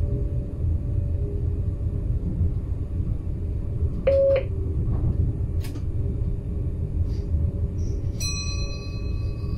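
Steady low rumble in the cab of an NS Stadler FLIRT sprinter train, with a short beep about four seconds in, a click a little later, and a steady high-pitched tone coming in near the end.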